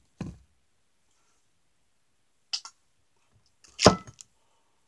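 A few short handling knocks and clicks with quiet between, the loudest a sharp knock about four seconds in, as objects and the camera are moved around.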